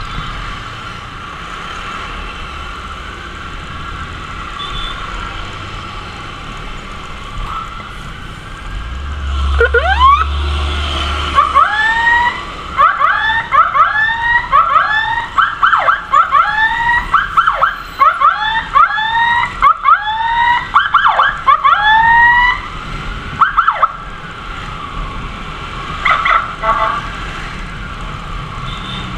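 Steady riding noise from a moving motorcycle. About ten seconds in, an electronic emergency siren starts whooping in quick rising sweeps, about two a second, for some twelve seconds, with a few short bursts again near the end.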